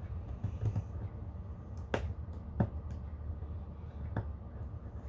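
Thin copper foil handled and pressed by fingers, giving a few sharp clicks; the three loudest come about two, two and a half, and four seconds in.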